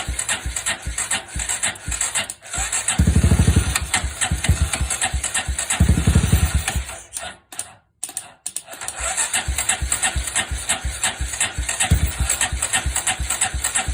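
Honda FTR223's air-cooled single-cylinder engine running through a Supertrap muffler. It idles with a steady beat of exhaust pulses and is blipped twice, about three and six seconds in. The sound drops out for about a second near the middle, then the idle carries on.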